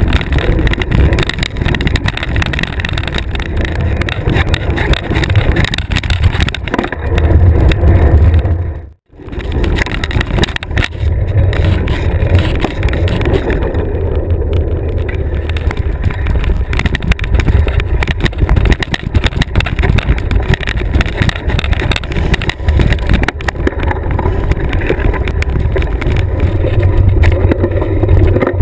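Wind rumbling on a bike-mounted action camera, with the knobby tyres crunching over the trail and the bike rattling and knocking over bumps. The sound drops out briefly about nine seconds in.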